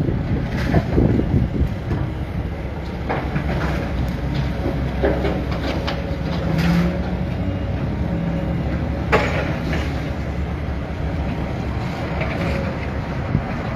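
Heavy demolition machinery running with a steady engine rumble and a faint held whine, with a few sharp knocks of debris about three, five and nine seconds in.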